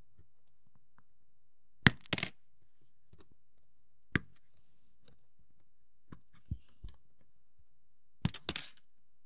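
Sharp plastic snips and clicks of hobby sprue cutters clipping miniature parts from the plastic frame: a quick cluster about two seconds in, a single snip near four seconds, a few softer taps, then another cluster near the end.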